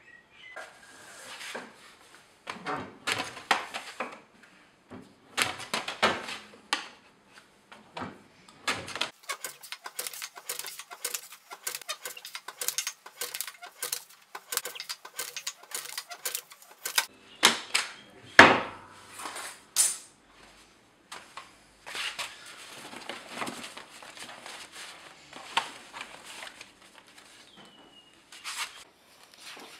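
Sheets of board being handled and cut on a Krause hand-lever board shear: rustling and sliding of board, with quick taps and clacks of board against the metal table and blade. The run of clicks is densest through the middle, and the loudest knock comes a little past the middle.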